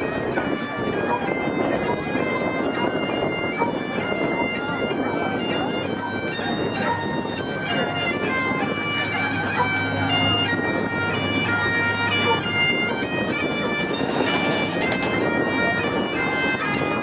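Bagpipes playing a tune of held, stepping notes, over the chatter of a crowd.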